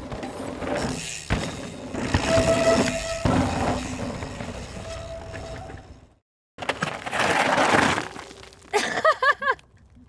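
Scott cross-country mountain bike ridden down a rocky dirt trail: tyres crunching over gravel and rock, the bike knocking over bumps, with two short squeals. The sound cuts out briefly about six seconds in, comes back as a loud rush of noise, and a woman laughs near the end.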